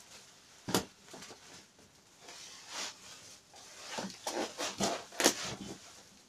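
Steel legs of a ZB37 machine-gun tripod knocking and clanking as it is handled and stood on the floor. There is a sharp knock about a second in, some rubbing and rustling, then a cluster of knocks and rattles near the end, the loudest a little after five seconds in.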